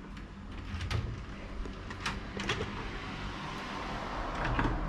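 A key being worked in a door lock: a few sharp clicks and rattles, about one, two and two and a half seconds in, over a steady low background hum.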